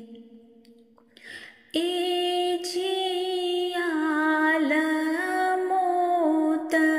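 A solo voice singing a ginan, an Ismaili devotional hymn, in long held notes with slow glides. The last note of one line fades out, a breath is heard just over a second in, and the next line begins shortly after.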